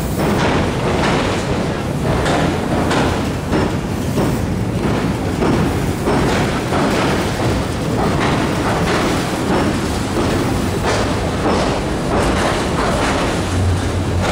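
Tobu Railway train crossing the steel railway bridge right beside the walkway: a loud, continuous rumble with repeated clacks of wheels over the rails.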